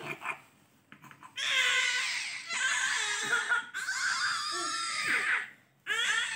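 A baby making long, high-pitched cries, four in a row with short breaks between them.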